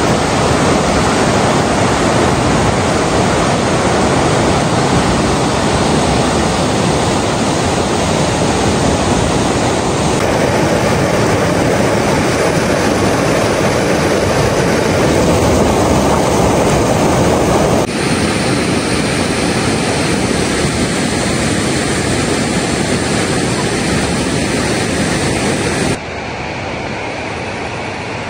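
River rapids rushing over rock ledges: a loud, steady rush of whitewater. The sound steps down suddenly twice, about two-thirds of the way through and again near the end.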